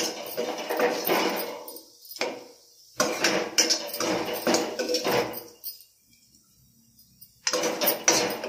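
A perforated metal spoon scraping and knocking against a metal kadai as cooked bitter gourd fry is scooped out, in a run of strokes with a quiet pause of about two seconds past the middle.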